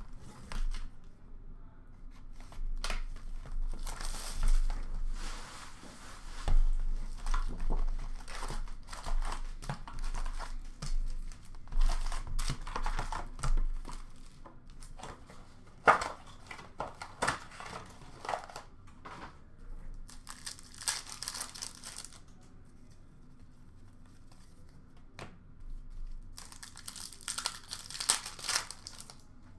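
Upper Deck hockey card foil packs being torn open and their wrappers crinkled in the hands, with scattered clicks as the cards are handled. The crackling comes in bouts, the longest in the first half and shorter ones later.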